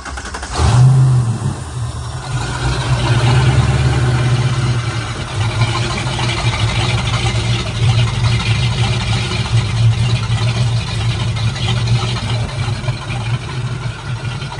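PCM Marine Ford GT40 5.0-litre V8 inboard boat engine catching about a second in and then running steadily. This is the first start after a replacement raw water pump impeller has been fitted.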